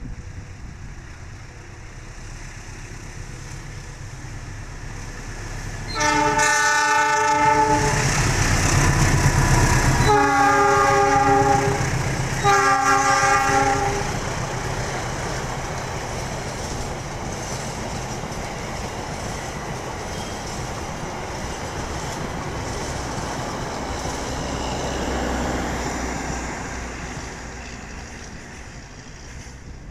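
Train passing with its locomotive horn sounding three loud blasts, the first a little longer than the other two, then the rumble of the wheels on the rails going on and fading away.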